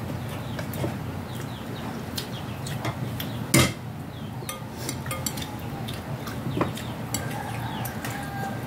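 Metal spoon and cutlery clinking against a glass bowl and plates: scattered light clicks, with one louder knock about three and a half seconds in.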